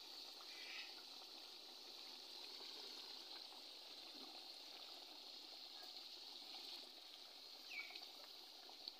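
Faint, steady bubbling of fish curry gravy simmering in an aluminium pot, with a brief high chirp near the end.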